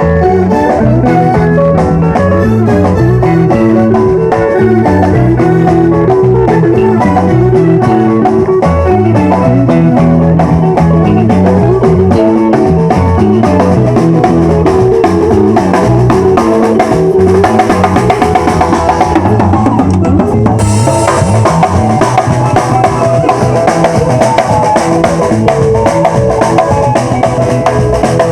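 A band playing loud music with a drum kit and a bass line. The sound turns brighter about three-quarters of the way through.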